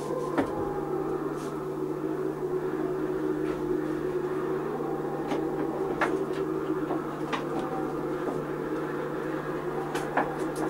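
A steady hum with a few faint held tones above it, and scattered small clicks and knocks.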